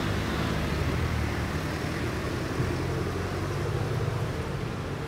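Street traffic: a motor vehicle's engine running steadily close by.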